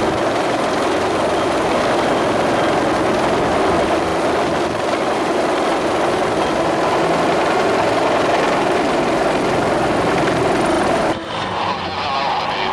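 Helicopter running close by, a loud, steady rotor and engine noise that cuts off suddenly about eleven seconds in.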